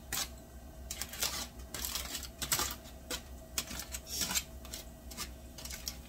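Aluminium foil crinkling and crackling in irregular bursts as a foil-wrapped roasted fish is torn open with a fork and hands, over a steady low hum.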